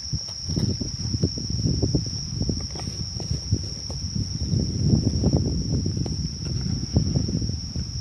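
Insects trilling steadily at one high pitch, under irregular low rumbling and knocks.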